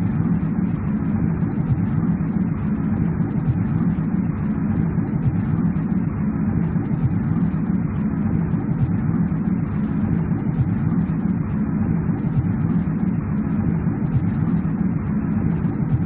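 Steady, even low rumbling noise from a snowy-forest nature ambience, with no separate events and no change in level.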